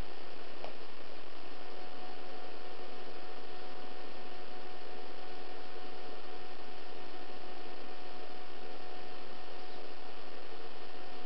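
Steady hum with an even hiss, the two unchanging throughout, and one short click under a second in.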